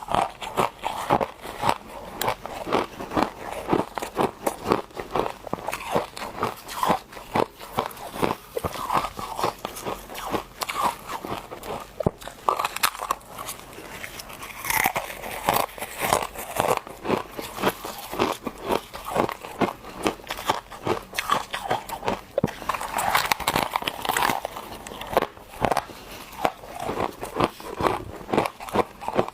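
Close-miked crunching and chewing of refrozen freezer frost chunks, a rapid, continuous run of sharp, brittle crunches as the ice is bitten and chewed.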